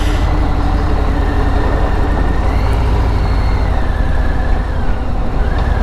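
Motorcycle running at road speed: a steady low rumble of engine and riding noise.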